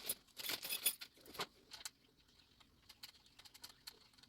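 Small hard parts clinking and rattling as CPU cooler mounting hardware is handled: a busy run of clicks in the first couple of seconds, then a few light scattered ticks.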